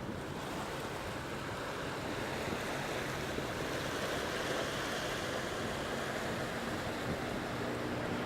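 Wind blowing across the microphone in a steady rushing noise, with a low steady engine hum underneath that grows a little clearer near the end.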